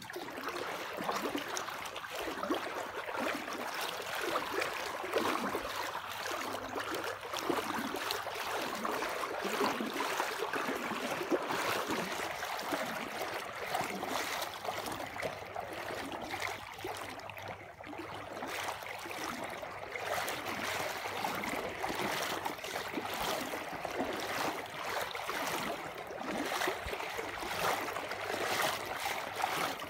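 Fast-flowing water rushing steadily, with small swells in level.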